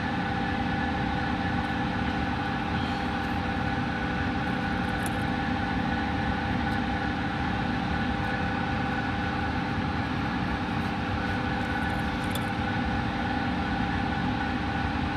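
Steady machine hum: a motor-driven whir with several constant tones, holding an even level throughout.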